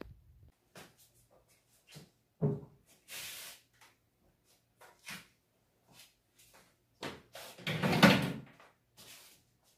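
Household objects being picked up and set down while a room is tidied: scattered light knocks and clicks, a sharp thud about two and a half seconds in, and a louder, longer clatter about eight seconds in.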